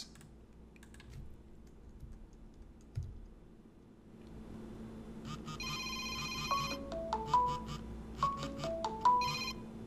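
Faint computer keyboard clicks, then a computer ringtone for a Google Voice incoming call: a short run of notes falling in pitch, played over and over.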